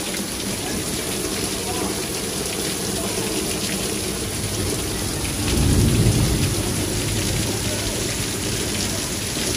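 Heavy rain pouring down steadily on lawn and pavement, with a low rumble of thunder swelling up about halfway through.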